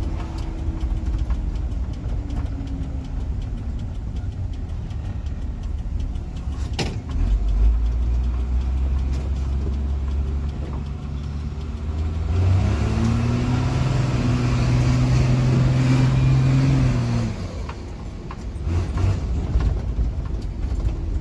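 Isuzu 6BD1-T turbo-diesel inline-six of a 1991 Isuzu FTR dump truck, running straight-piped with its blown muffler cut off, heard from inside the cab as the truck drives. The exhaust note grows louder about a third of the way in, climbs in pitch and loudness past the halfway mark, holds for several seconds, then drops off.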